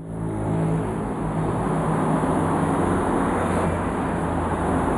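City street traffic: a steady rumble of motor vehicles, with a low engine hum that is clearest in the first couple of seconds.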